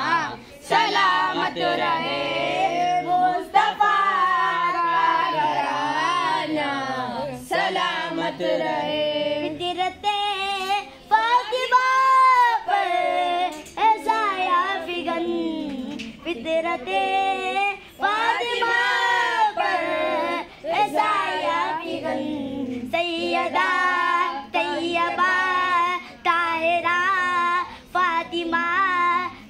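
A group of boys singing a devotional chant together, their voices moving up and down in long phrases broken by short breaths.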